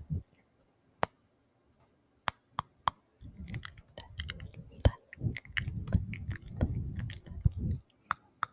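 Close-miked ASMR mouth sounds: a few sharp, isolated wet tongue clicks, then from about three seconds in a dense run of wet clicking and smacking mouth noises that stops shortly before the end.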